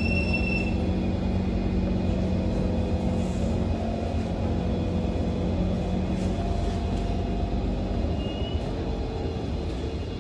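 Kawasaki C151 MRT train heard from inside the carriage, slowing into a station: a steady rumble with a low motor hum that fades out about halfway through as the train comes to a stop.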